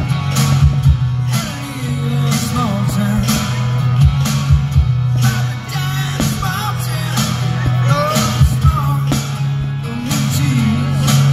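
Rock-style music with a singer and guitar, a steady low band underneath and several sharp thumps spread through it.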